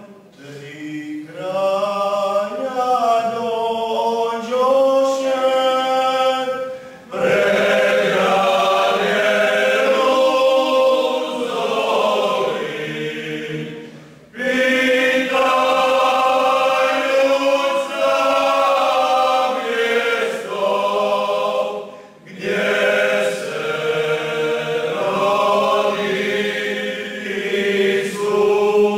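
Croatian male vocal group singing unaccompanied in several-part harmony, in long held phrases with a short break for breath about every seven to eight seconds.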